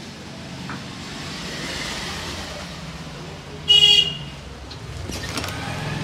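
Road traffic passing, with one short vehicle horn toot a little under four seconds in, the loudest sound.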